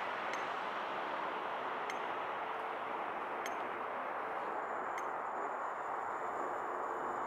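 Steady rush of a distant jet airliner's engines during a takeoff run, with a faint high whine coming in about halfway through. Faint ticks sound about every second and a half.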